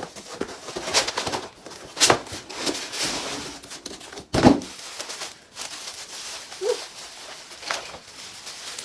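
Packaging being handled during an unboxing: irregular rustling and scraping, with a few sharp knocks, the loudest about four and a half seconds in.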